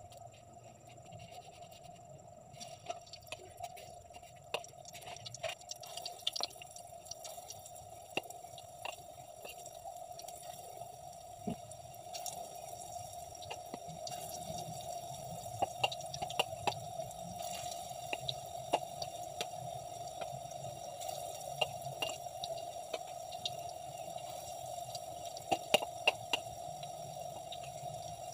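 Breaded pili pieces deep-frying in hot oil in a wok: sizzling with scattered sharp pops and crackles, getting louder about halfway through. A steady hum runs underneath.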